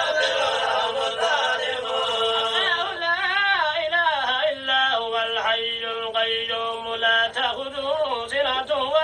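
A man's voice chanting a Quranic recitation in a melodic style. It opens on one long held note, then moves into a wavering, ornamented line with further drawn-out notes.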